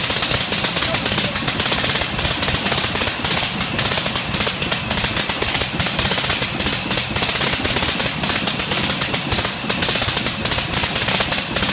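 Le Rhône rotary aero engine running steadily, its firing strokes a fast, even rapid-fire crackle like a machine gun.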